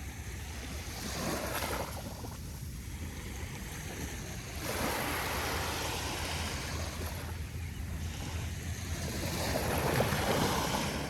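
Small, gentle ocean waves washing onto a beach, the wash swelling and fading in slow surges, the loudest near the end, with a low rumble of wind on the microphone underneath.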